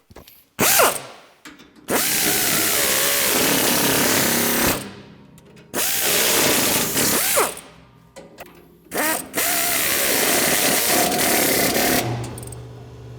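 Pneumatic air ratchet running nuts down onto 1/2-inch plow bolts that hold a snowblower's steel cut edge. It goes in several runs of one to three seconds with short pauses between them, and a steady low hum comes in near the end.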